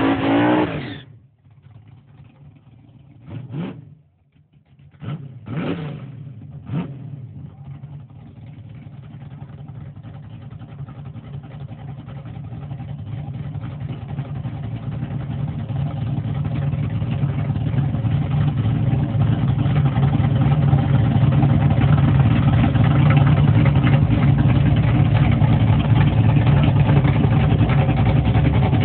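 Street-legal drag car's engine: a rev that falls away, a few short throttle blips, then a steady engine note that grows louder over about ten seconds and holds.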